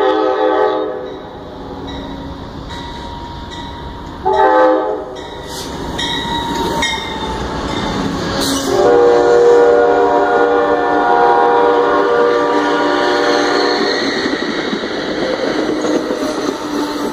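Amtrak passenger train passing close by with its locomotive horn sounding. One blast ends about a second in, a short blast comes at about four and a half seconds, and a long blast runs from about nine to fourteen seconds. Under the horn, the locomotives and cars rumble and clatter past on the rails.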